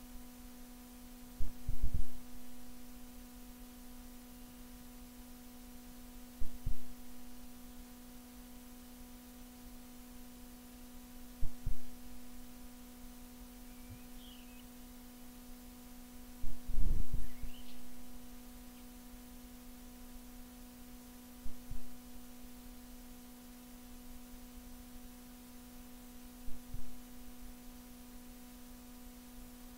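Steady low electrical-sounding hum, with a short double low thump about every five seconds.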